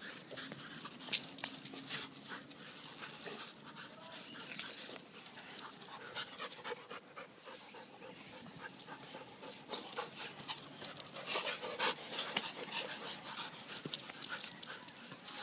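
Dogs play-fighting on concrete, among them an Alaskan Malamute: their breathing and quick scuffles and paw steps in many short, sharp bursts, busiest about eleven to twelve seconds in.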